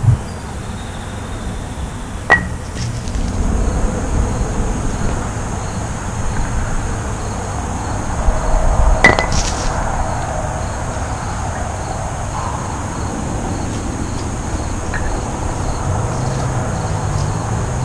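Two sharp wooden clacks, a little over 2 seconds in and about 9 seconds in, as thrown wooden kubb batons strike the wooden kubb blocks, over steady wind rumble on the microphone.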